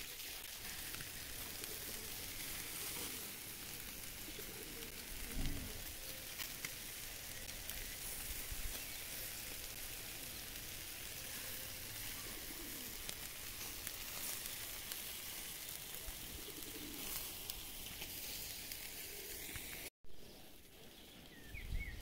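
Meat sizzling on a barbecue grill, a steady hiss. A bird coos a few times in the background.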